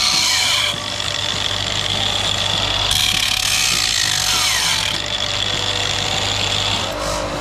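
Handheld electric angle grinder with an abrasive disc grinding the rough surface of a cast aluminium effects-pedal enclosure, a steady whine that grows harsher whenever the disc bears harder on the metal. This is the cleanup of the casting before polishing and plating. The grinding cuts off near the end.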